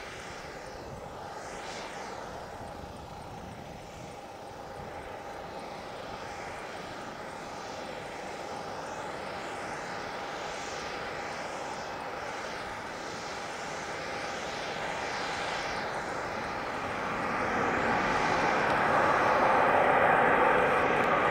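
Jet engines of an Airbus A320-family airliner: a steady jet rush with a held whine, growing louder over the last few seconds.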